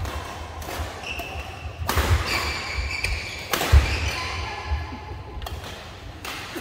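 Badminton doubles rally: rackets strike the shuttlecock with sharp cracks a second or two apart, among the thud of players' feet and the squeak of shoes on the court mat, in a reverberant hall.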